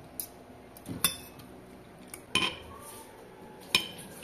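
Metal spoon and fork clinking and scraping against ceramic plates, with three sharp clinks spaced more than a second apart.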